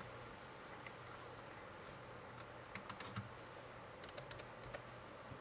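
Laptop keyboard keys clicking faintly as a name is typed: a few taps about three seconds in, then a quick run of keystrokes a second later.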